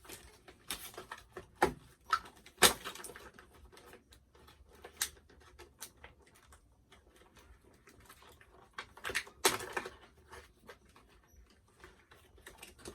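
Toy packaging being handled by hand: scattered rustling, crinkling and clicks, with a few sharper knocks, the loudest about three seconds in and another cluster near the middle.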